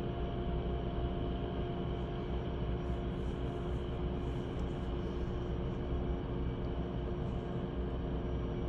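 Drilling-rig machinery running steadily: a constant low rumble with a steady hum on top, and no banging.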